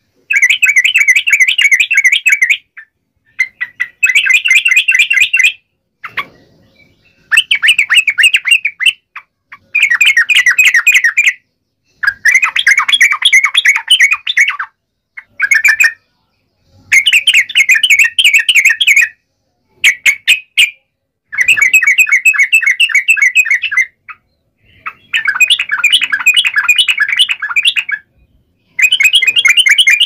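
Yellow-vented bulbuls (trucuk) chattering in a wild fight: about a dozen loud bursts of rapid, busy notes, each one to three seconds long, with short silent gaps between them.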